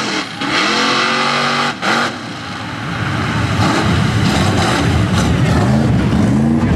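Mud truck engine revving hard, its pitch climbing and dropping again and again, louder from about three seconds in. A loud rushing noise runs over it for the first two seconds.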